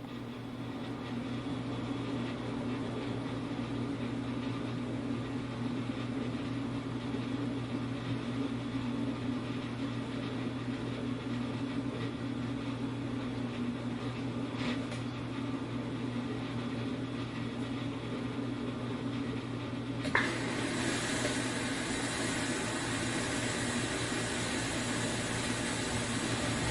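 Dishwasher running: a steady motor hum under an even hiss of water spray. About twenty seconds in there is a click, and the spray turns louder and brighter.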